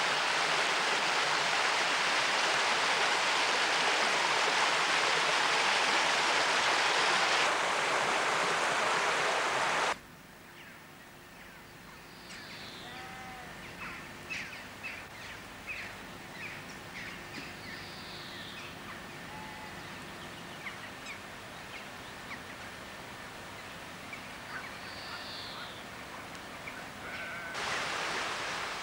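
Water rushing along a small stream for about ten seconds, then a sudden cut to quieter open-country ambience with scattered bird chirps and a few short calls.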